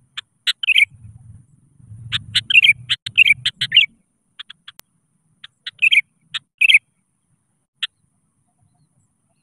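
Sooty-headed bulbul (kutilang) singing its energetic territorial song, which calls out rival males. It gives short sharp notes mixed with quick bubbly phrases in three bursts with brief pauses between, then a single note near the end.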